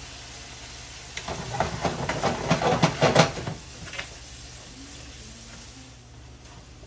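Ribeye steaks frying in butter in a skillet. A loud burst of crackling sizzle swells from about a second in and dies back after about three and a half seconds. A single click follows near the four-second mark, then a faint steady sizzle.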